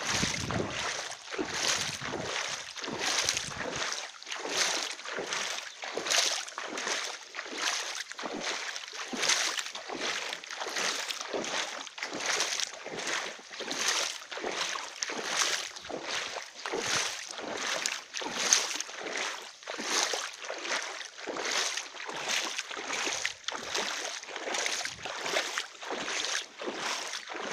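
Floodwater sloshing and splashing in a steady rhythm of about two splashes a second, made by someone moving through the water.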